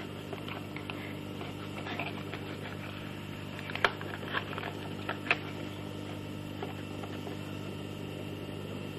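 Steady electrical hum, with a few sharp clicks and crinkles of thin folded shiny sheet pieces being handled and interlocked, the loudest of them near the middle.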